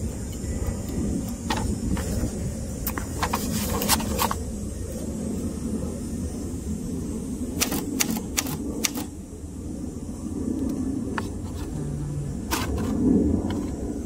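1964 Hermes Ambassador manual typewriter: scattered sharp key strikes of the typebars on the platen through a carbon ribbon, with a quick run of about five strikes some eight seconds in. A steady low rumble runs underneath.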